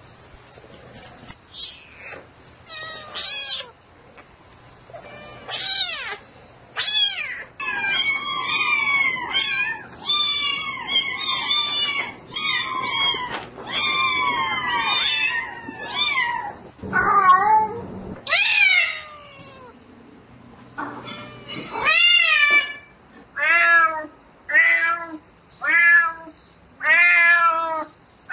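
Cat meowing over and over in long drawn-out calls, a cat calling for a mate. In the middle the calls come thick and overlap; near the end they come about once a second.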